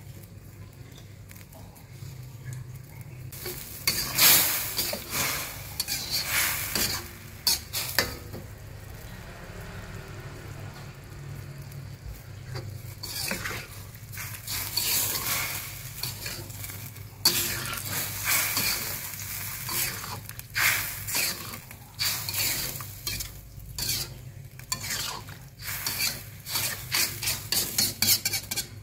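Slotted stainless steel spatula scraping and stirring around a stainless steel wok as tofu, meat and bok choy sizzle in a little broth. The stirring comes in two spells, starting about four seconds in and again about thirteen seconds in, ending in a quick run of scrapes.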